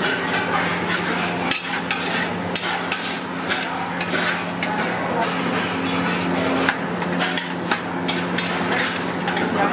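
Long metal spatula scraping and clicking against a large iron kadai, stirring chopped onion and chillies frying in oil, in quick irregular strokes. A steady low hum runs underneath.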